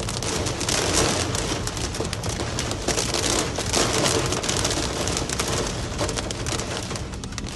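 Heavy rain falling hard, a dense hiss of countless small drop hits with a low rumble underneath.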